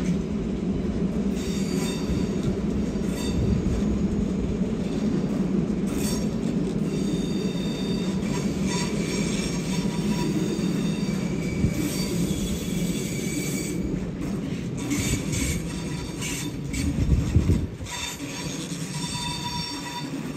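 A train rolling on the tracks with a steady rumble, its wheels squealing in high tones on and off. A short, louder burst of rumbling comes near the end.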